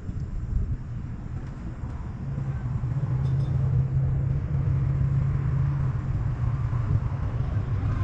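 An engine running with a low steady hum, growing louder about two and a half seconds in.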